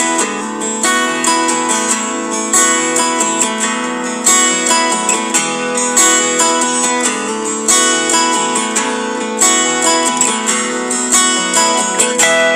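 Background music: acoustic guitar played in quick plucked and strummed notes.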